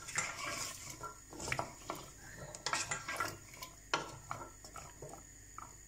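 A spoon stirring chopped carrots in a pan, scraping and clinking against the pan in an uneven rhythm, with one sharper knock about four seconds in. The stirring dies down near the end.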